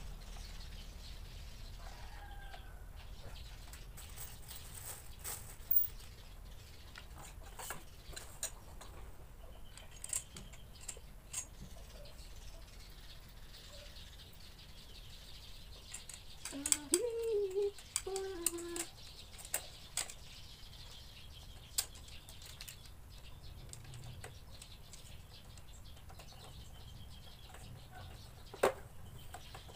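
Scattered clicks, knocks and plastic rustling as a baby rocking chair's tubular frame and plastic fittings are handled and fitted together, with a cluster of handling noise and a short pitched call about halfway through and a sharp click near the end.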